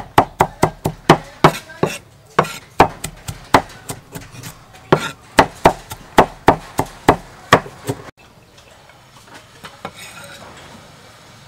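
Cleaver chopping red shallots on a wooden chopping board: quick, somewhat uneven knocks of the blade on the wood, about three or four a second, stopping about eight seconds in.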